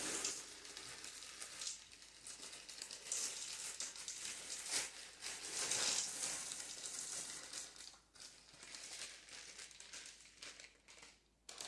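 Frozen peas pouring from a plastic bag into an Instant Pot, a noisy hiss of many small pellets, loudest in the middle, with the bag crinkling as it is shaken out.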